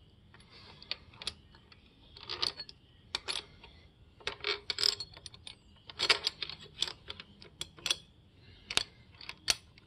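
Metal clinks and taps as steel motor-mount bracket plates and bolts knock against each other and the Kawasaki KX85's cylinder head while being fitted: irregular sharp clicks, some in quick clusters.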